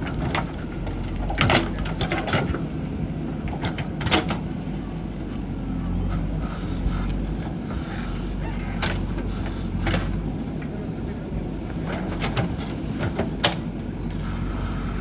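A JCB 3DX backhoe loader's diesel engine runs steadily, with a number of sharp knocks and clanks over it.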